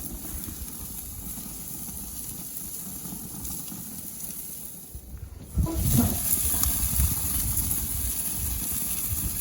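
A steady hissing noise, quiet at first and much louder from about halfway through, with a few low thuds just after it rises.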